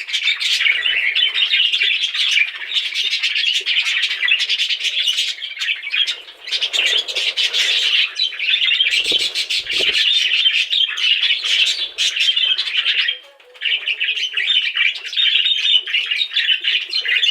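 A group of budgerigars chirping and chattering continuously, with a brief pause about three-quarters of the way through.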